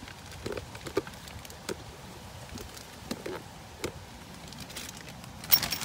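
Scattered light clicks and knocks of hands handling parts. Near the end comes a short crinkly rustle, the plastic bag holding the replacement drive being handled.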